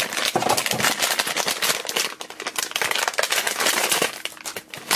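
Foil blind-bag packet crinkling and crackling as it is handled and opened by hand, a dense run of crackles with a short lull near the end.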